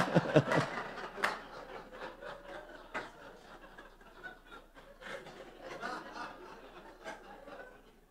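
A man laughing, a strong chuckle in the first moment that trails off into quieter, breathy laughter, with a few soft clicks along the way.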